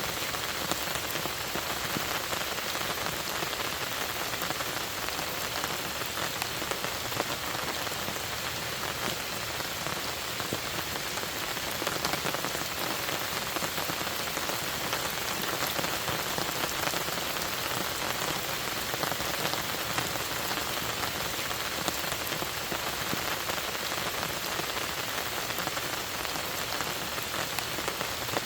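Steady rain falling on a lake and its surroundings, a dense even patter of many drops without a break.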